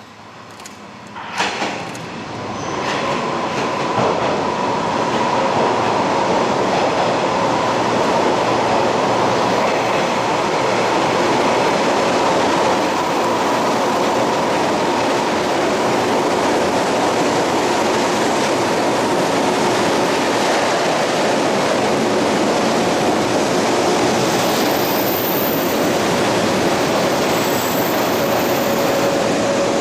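485-series electric train running past close by. After a sharp click about a second and a half in, the sound builds over a couple of seconds into a loud, steady run of wheel and running noise with a faint steady whine.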